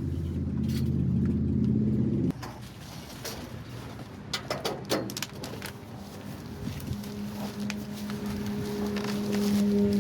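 A steady motor hum that cuts off suddenly about two seconds in, followed by scattered clicks and rustling, then a steady hum starting again in the second half.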